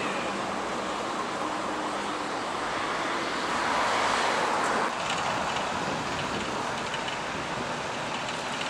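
Steady hum of vehicle engines and traffic, with a louder swell of noise around four seconds in and a sudden change in the sound about five seconds in.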